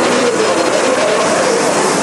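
CNC horizontal machining center running: a loud, steady mechanical noise with faint wavering tones over it.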